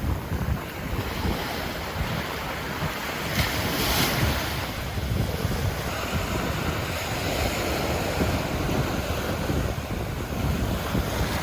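Ocean surf breaking and washing up a sandy beach, a continuous rushing that swells and ebbs, with wind buffeting the microphone.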